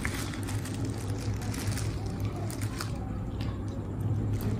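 A person chewing a mouthful of chicken shawarma, with soft, scattered wet mouth clicks over a steady low hum.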